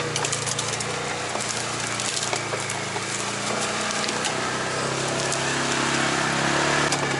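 Polaris side-by-side running steadily as it drives a rough woods trail, its engine hum under scattered sharp cracks and clicks.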